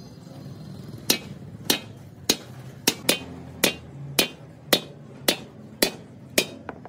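Hammer blows on a dished steel tank end cap held upright on its rim: about a dozen sharp metallic strikes, a little under two a second, starting about a second in.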